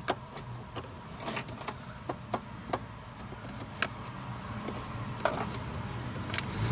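Irregular small clicks and ticks of a Phillips screwdriver and screws as the steering column cover screws are backed out, over a steady low hum.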